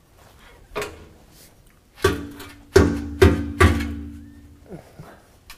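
Stainless steel exhaust pipe knocking and clanking as it is worked by hand onto the muffler outlet. One knock comes about a second in, then four close knocks from about two seconds in, the pipe ringing with a steady metallic tone that dies away near the end.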